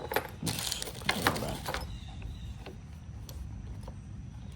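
Tools being handled and moved about in a toolbox: a quick run of clicks and rattles over the first two seconds, then a few faint ticks.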